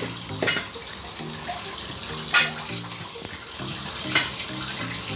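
Pot of pork broth bubbling on the stove: a steady watery hiss with three sharp pops or clicks, about half a second, two and a half and four seconds in.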